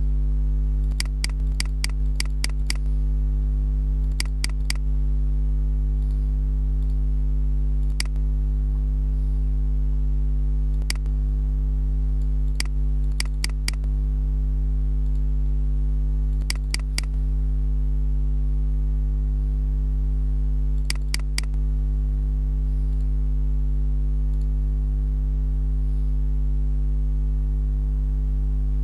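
Computer mouse clicks, some single and some in quick runs of three, over a steady low electrical hum.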